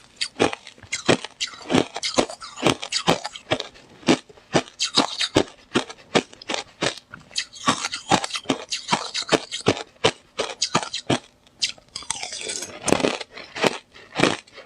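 Slush ice being bitten and chewed close to the microphone: a quick, uneven run of crisp crunches, with a few stretches of softer, grainy crushing in between.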